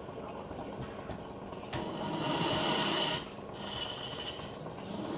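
Wood turning on a lathe, with a hand chisel scraping and cutting the spinning wood: a louder hissing cut lasting about a second and a half, starting a little under two seconds in, then a lighter cut.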